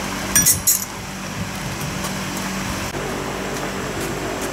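Two sharp metallic clicks about half a second in, from the motorbike's handlebar parts being handled, over a steady low mechanical hum.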